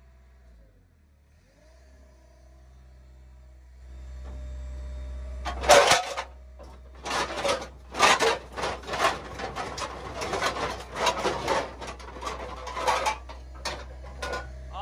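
Scrap metal pieces clanking and clattering against an excavator's electromagnet and each other as the magnet settles into a container of scrap and lifts a load. A low steady machine hum runs underneath. A loud clank comes about six seconds in, followed by a long run of irregular clatter.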